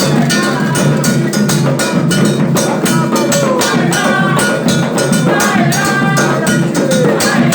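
Ilú drums and percussion playing a fast, steady rhythm, with voices singing over them.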